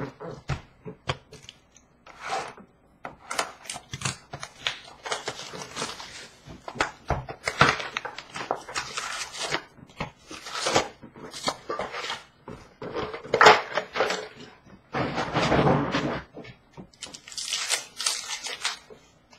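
Sports card packs being torn open and their wrappers crinkled, with cards shuffled and slid against one another in an irregular string of rustles, scrapes and small clicks.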